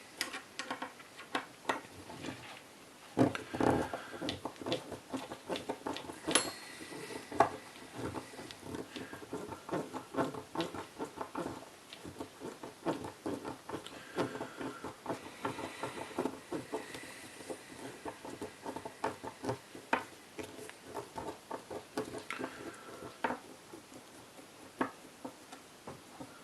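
Irregular small clicks, taps and scrapes of a screwdriver and metal parts being handled while the screws of an airsoft rifle's hop-up chamber are worked on, with a few sharper knocks in the first several seconds.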